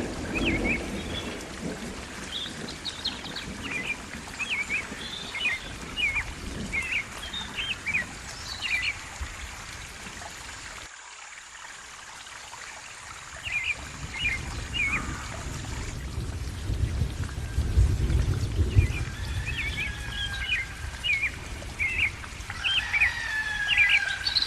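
Rain falling with low rolling thunder while birds chirp in short, repeated calls. The rumble drops away suddenly about eleven seconds in, then swells back louder in the second half.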